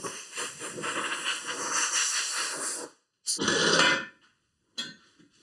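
Old headliner board being rubbed to scrub off its loose, deteriorated foam backing: a scratchy rustling scrape in repeated strokes that stops about three seconds in, followed by a short, louder burst of the same kind.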